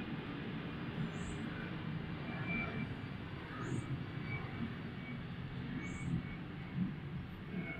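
Steady low outdoor rumble, with three faint, short, high chirps about two and a half seconds apart.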